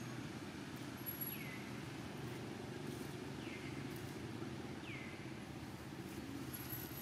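Three short whistled calls, each falling in pitch, about two seconds apart, over a steady low rumble of background noise.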